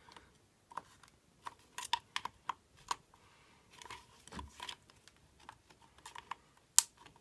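Flathead screwdriver prying at a small cap on the stroller chassis's folding-handle joint. It makes an irregular string of sharp metal clicks and light scrapes, the loudest near the end, as the tip works under the cap's edge.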